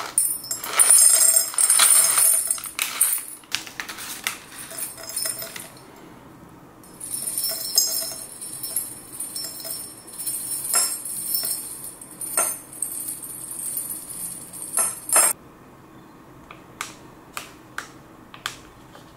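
Dried cloves poured from a plastic packet into a small glass jar, rattling and clinking against the glass amid the crinkle of the packet, in two spells: a short one at the start and a longer one of about eight seconds. Near the end come a few separate light clicks.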